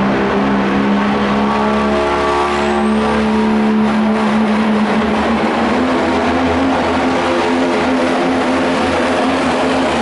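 Diesel engine of a pro stock diesel pickup running flat out under load while pulling a weight-transfer sled, a loud steady drone. Its pitch steps up about two seconds in and again around the middle.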